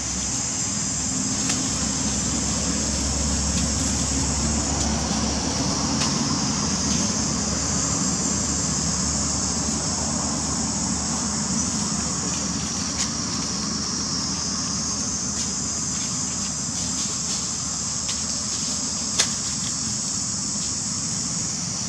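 Steady outdoor ambience: a constant high-pitched drone over a low rumble, with a few sharp clicks, the loudest about 19 seconds in.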